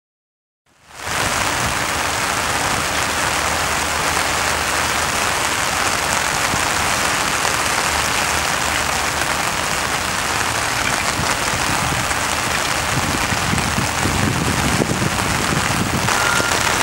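Heavy rain falling steadily, a dense hiss that fades in about a second in.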